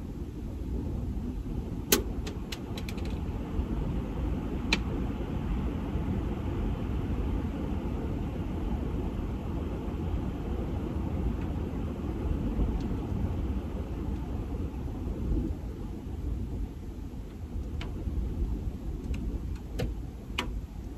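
Wind gusting against a minivan camper, heard from inside as a steady low rumble. A few sharp clicks or taps come about two seconds in, again near five seconds, and a few more near the end.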